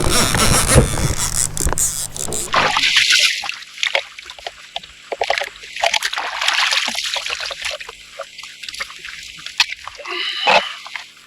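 Water splashing and sloshing in several separate bursts with quieter gaps between them, after a louder, rougher stretch in the first couple of seconds.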